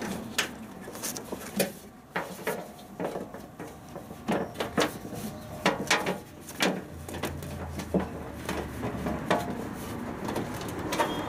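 Irregular clunks, clicks and scraping as a rubber drive belt is worked by hand onto the motor and drum pulley of a Hotpoint WT960 washing machine.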